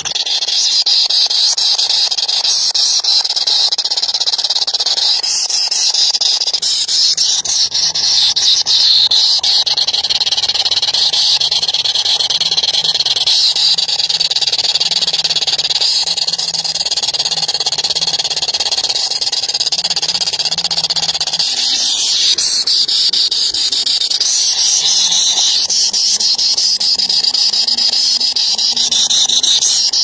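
Nestlings begging for food: a continuous, loud, high-pitched shrill chorus of rapid squeaky calls.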